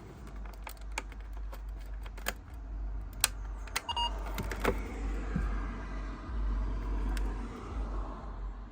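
Handling noise: scattered clicks and knocks over a steady low rumble, with a short electronic beep about four seconds in.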